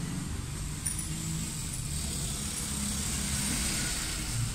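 Steady low rumble of a running vehicle engine.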